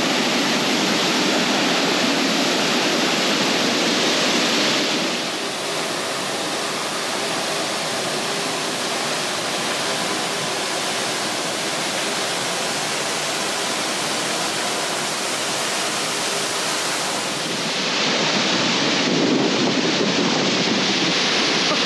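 A large waterfall in heavy flow: a loud, steady rush of falling water, dipping slightly from about five seconds in until near the end.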